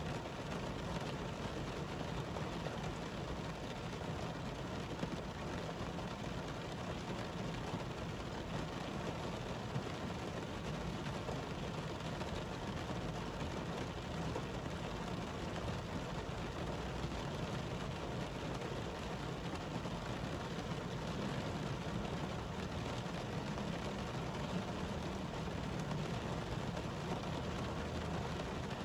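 Heavy rain pouring steadily onto wet pavement, a dense, even hiss that stays level throughout.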